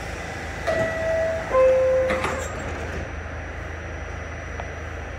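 R46 subway car's two-note door chime, falling in pitch, then the doors sliding shut with a knock a moment later. Under it runs a steady low hum from the stopped train.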